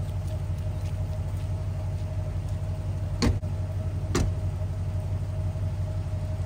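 Supercharged V8 Range Rover with its mufflers deleted, idling on a cold start with a steady, pulsing low exhaust rumble. Two sharp knocks come about three and four seconds in, the second as the open driver's door is shut.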